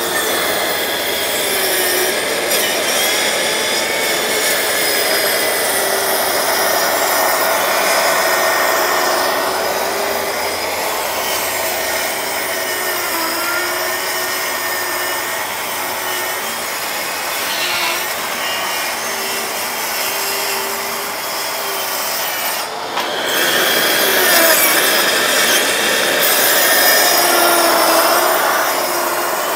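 Cordless plunge saw (track saw) cutting through a laminated wood board along its guide rail: a steady motor whine under load with the blade rasping through the wood. The sound breaks off briefly about three quarters of the way through, then carries on.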